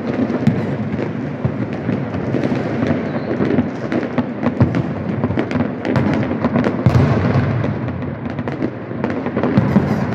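Dense, unbroken barrage of fireworks and firecrackers going off all over the city: many overlapping bangs and sharp cracks over a constant low rumble.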